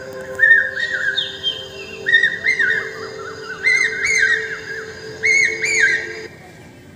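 Recorded birdsong over a steady background drone: pairs of chirps that rise and fall, repeating every second or so, until both chirps and drone cut off together about six seconds in.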